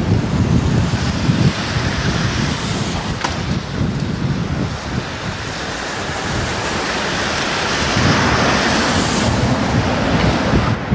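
Strong gusty wind rushing and buffeting the camcorder microphone in a low rumble, with one brief click about three seconds in and a swell of rushing wind around eight seconds in.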